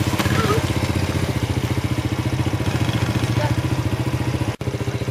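Small motor scooter engine running steadily at low speed under two riders, with a quick, even pulse. The sound cuts out for an instant a little after four seconds in.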